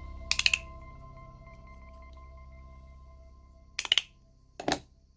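Handmade magnetic fidget slider clicking as its pieces are slid and snapped together: three short clusters of sharp clicks, about half a second in, near four seconds in and just before the end.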